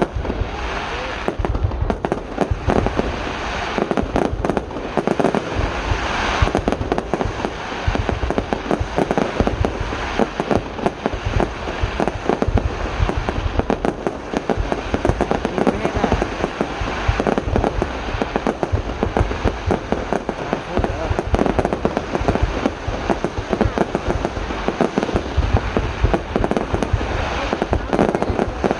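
Aerial fireworks display going off in a dense, continuous barrage of bangs and crackling, with no pause.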